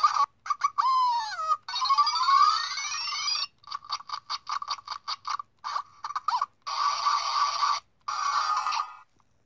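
A Zhu Zhu Puppies plush toy dog's small built-in speaker plays a tinny string of electronic sound effects and tune snippets: gliding whistle-like pitch sweeps, a quick run of short beeps, then longer tonal phrases. The sounds stop suddenly about nine seconds in.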